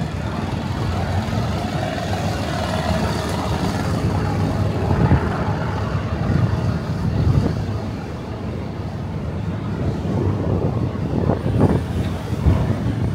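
City street traffic: cars passing through an intersection, a steady low rumble of engines and tyres.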